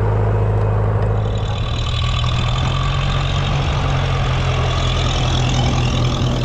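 Classic Massey Ferguson tractor engine running steadily close by, its note rising a little about a second in.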